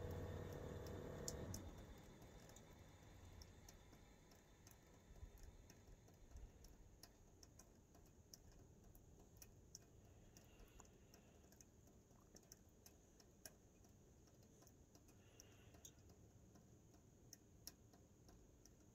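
Panasonic WC09H3E3 heat-pump outdoor unit: its steady hum stops about a second and a half in. What follows is near silence broken by faint, irregular ticks and clicks.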